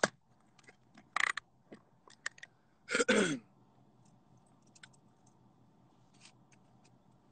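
Quiet sounds of someone eating pizza: faint clicks of chewing and a short falling 'mm' from the throat about three seconds in.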